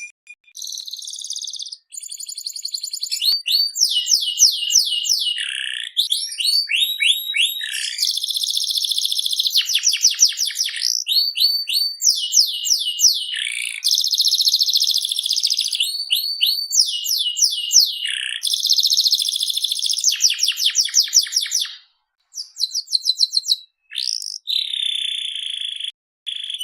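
Domestic canary singing a long, unbroken song of rapid rolling trills and quick runs of repeated sweeping notes, with a few short breaks near the end.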